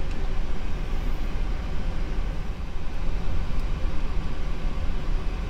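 Steady rushing noise of a Boeing 737NG cockpit's air conditioning and ventilation, a low rumble with an even hiss over it.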